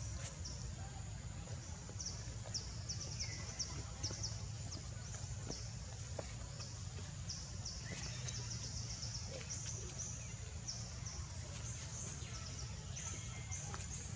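Forest ambience: a steady high-pitched chirring that pulses several times a second, over a low rumble.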